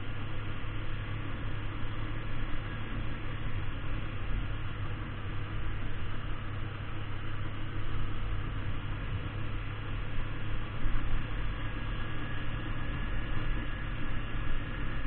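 Kawasaki Ninja 250 motorcycle running steadily while riding along, a low engine drone under a haze of wind and road noise on the bike-mounted camera's microphone.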